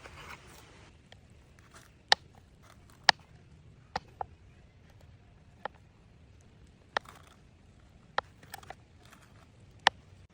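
About nine sharp, short clicks at irregular intervals, over low background noise.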